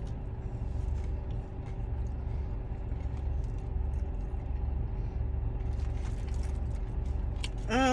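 Low steady rumble inside a parked car's cabin, with a faint steady hum and a few light clicks.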